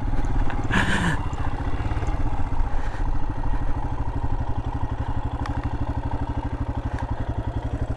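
Royal Enfield Himalayan's single-cylinder engine running at low revs with a steady, even beat.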